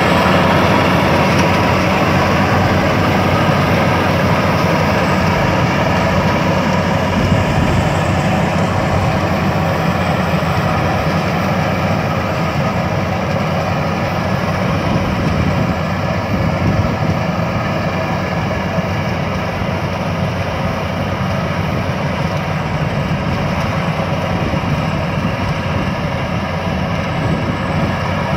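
Rice combine harvester running steadily, its engine and machinery giving a continuous, unchanging hum.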